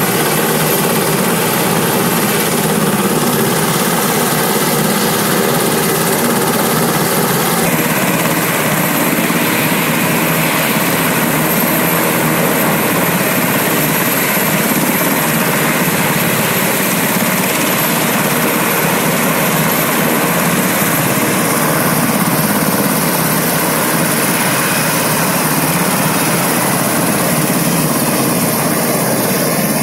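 PZL Mielec S-70i Black Hawk helicopter running on the ground with its twin turboshaft engines and rotor turning, a loud steady running noise before departure. The sound turns brighter about eight seconds in.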